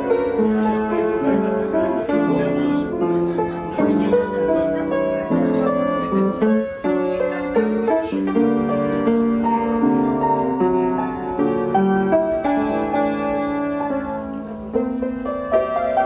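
Instrumental piano music, a continuous piece of played notes.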